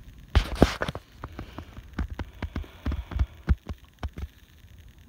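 A short clattering rustle about half a second in, then a string of irregular soft knocks and dull thumps for a few seconds.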